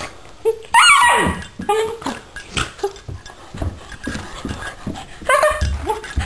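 A German shepherd puppy and a six-month-old dog play-fighting, with a loud high yelp about a second in, short yips and thumps after it, and another bark near the end.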